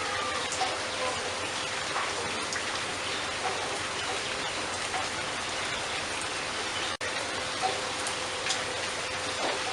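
Steady rain falling, with a few faint short bird chirps over it. The sound cuts out for an instant about seven seconds in.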